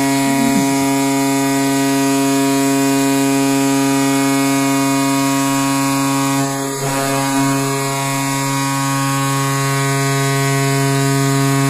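Recorded NHL arena goal horn: one long, steady, deep horn blast announcing a goal, dipping slightly about halfway through.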